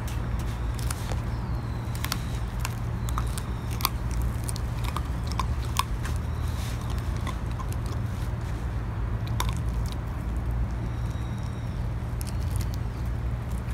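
A border collie and a papillon gnawing on veal shin bones: irregular sharp cracks and clicks of teeth crunching bone, over a steady low rumble.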